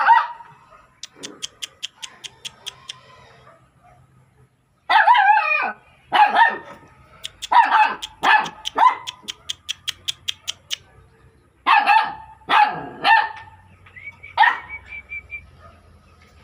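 A dog barking in spaced groups of short sharp barks, with a longer wavering bark about five seconds in. Between the barks come quick trains of sharp clicks, about six a second.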